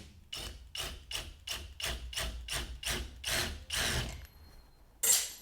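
Screwdriver working a fixture's mounting screw in quick, even strokes, about four a second for some four seconds, followed by a single sharp knock.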